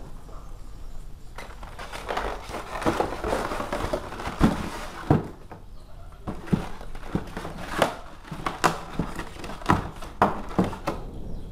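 Plastic bags and a foam packaging tray rustling and crinkling as parts are handled and pulled out of a box, with sharp knocks and taps scattered throughout.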